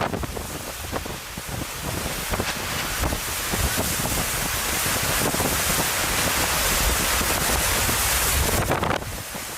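Hurricane wind and rain: a steady rushing hiss, with the wind buffeting the microphone in low rumbles. The level drops suddenly near the end.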